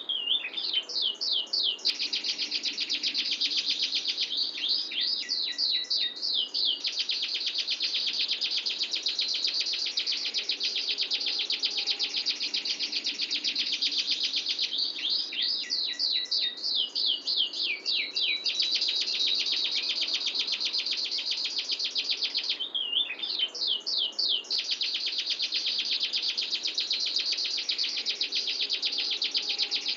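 Domestic canary singing a long, unbroken rolling trill. About four times it breaks into a quick run of falling whistled notes, then returns to the roll.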